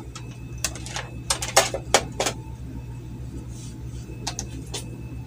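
Sharp plastic clicks and taps from a digital multimeter and its test leads being handled and set down on a circuit board, a quick run of them in the first two seconds and a few more near the end, over a steady low hum.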